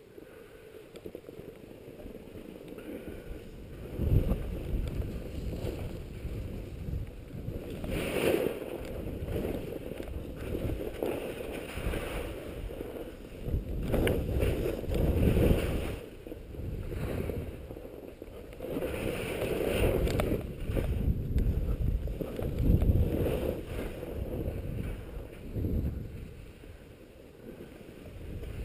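Skis hissing and scraping over packed, choppy snow through a series of turns, with wind rumbling on the camera microphone; the noise swells and fades in surges every few seconds as each turn is made.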